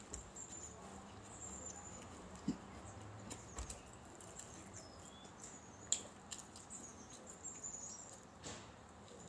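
Quiet chewing and mouth sounds of someone eating a chicken sandwich close to the microphone, with scattered small clicks and two sharper knocks, about two and a half and six seconds in.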